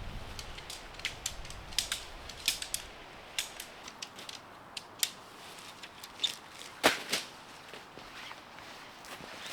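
Irregular sharp clicks, snaps and light knocks of camping gear being handled during camp setup, the loudest snap about seven seconds in.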